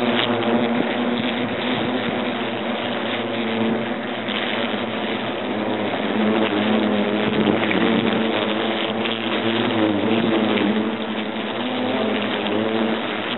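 European hornets buzzing in flight close to the microphone: a steady drone whose pitch wavers up and down.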